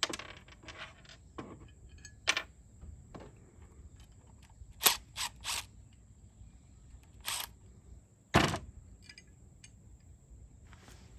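Separate sharp clicks and clacks of metal hardware, a rack mounting clamp, nut and cordless impact driver, being handled and knocked together, spaced a second or more apart.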